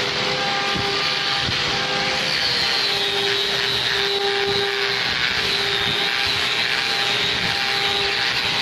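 Handheld electric angle grinder running steadily with a high whine as its disc works the surface of a wooden carving.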